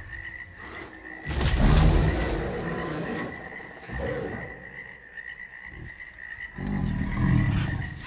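Sound-designed dinosaur jungle ambience: a steady high insect drone, with a deep creature call about a second in and another near the end, croak-like and meant as dinosaur vocalizations.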